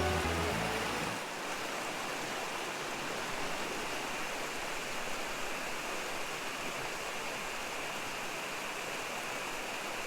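Water of a small river running steadily over rocks, an even rushing sound, with the tail of background music fading out in the first second.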